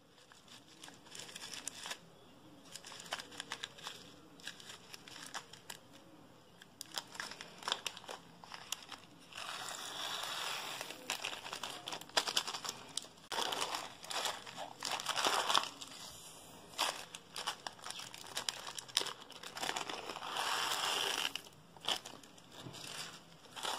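A small zip-lock plastic bag crinkling in the fingers as tiny beads are shaken out of it, in short bursts on and off, the longest about halfway through and near the end.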